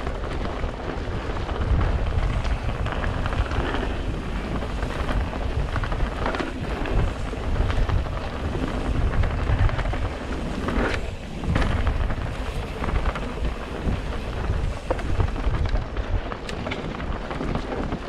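Mountain bike riding down a dirt forest trail: tyres rolling over dirt, roots and stones, with scattered knocks and rattles from the bike, under heavy wind rumble on the action camera's microphone.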